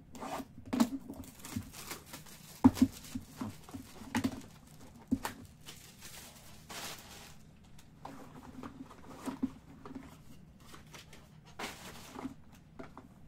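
Plastic shrink wrap being slit and torn off a sealed trading-card hobby box, then the cardboard box opened and the shrink-wrapped inner boxes handled: crinkling, tearing and small taps of cardboard, with a longer rip about seven seconds in and another near the end.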